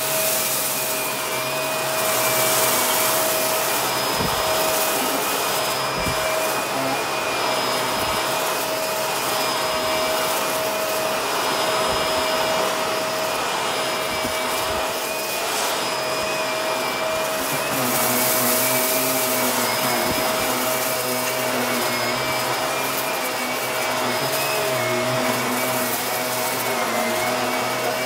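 Shark upright vacuum cleaner running steadily with a high motor whine, sucking up scattered rice from the carpet: short clicks and spells of crackling as the grains are pulled into the machine.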